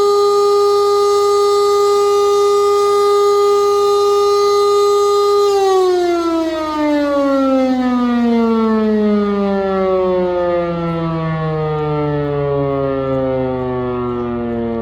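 Real E57 motor siren sounding one loud, steady tone, then switched off about five and a half seconds in, its pitch falling slowly and steadily as the rotor winds down.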